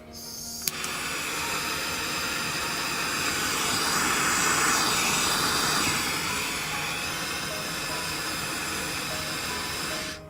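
Butane pen torch lit with a click of its igniter, its flame hissing steadily, a little louder in the middle, then shut off suddenly near the end.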